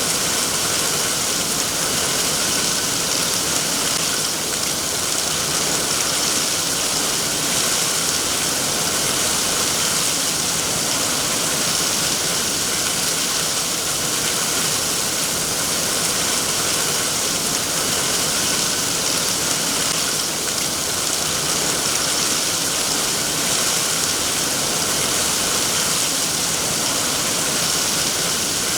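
Steady, even rain, a continuous hiss with no distinct drops or pauses.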